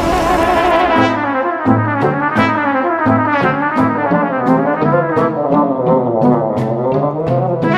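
Instrumental background music: a brass-like melody over a stepping bass line, with a steady beat of light percussion ticks.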